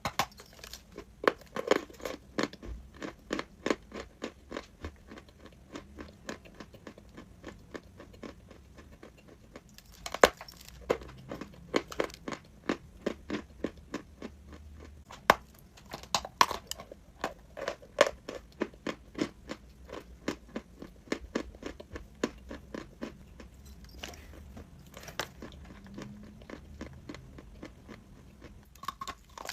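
A person biting and chewing crunchy eating chalk close to the microphone: rapid sharp crunches, several a second, in bouts separated by short pauses.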